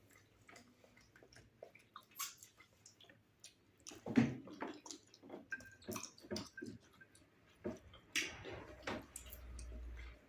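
Quiet eating sounds: scattered wet mouth smacks and squishes from eating fufu with slimy ogbono soup, with one louder knock about four seconds in.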